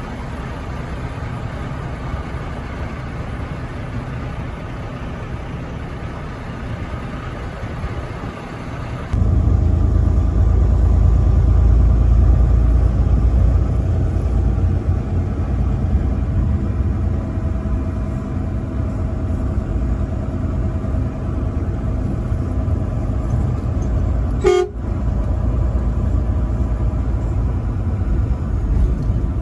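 Semi truck driving on the highway: steady engine and road rumble. It turns abruptly louder and deeper about nine seconds in. Near the end comes a single short horn toot.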